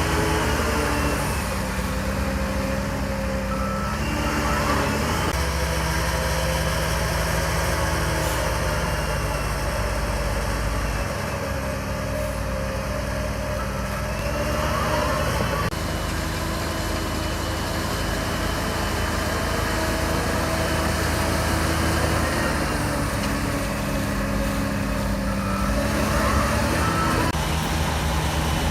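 Shantui DH17C3 bulldozer's diesel engine running under load, its pitch rising and falling about three times as the machine works.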